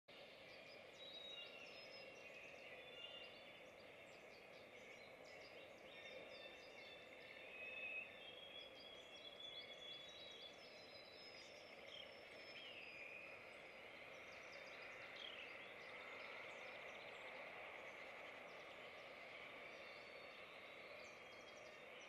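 Faint chorus of songbirds in the surrounding woods: many short, thin whistled notes and chirps, some gliding in pitch, over a steady background hiss.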